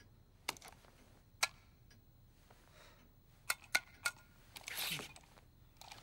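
Sharp clicks of a hand-held call button being pressed: two spaced clicks, then three in quick succession about three and a half seconds in. A brief rustle follows.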